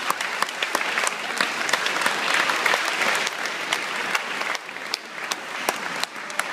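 Audience applauding, a dense patter of many hands with loud single claps from someone close by. The applause thins a little after about four and a half seconds.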